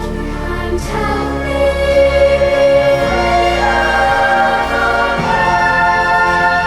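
Background music: sustained choir-like voices over held chords and a steady bass, changing chord every second or two.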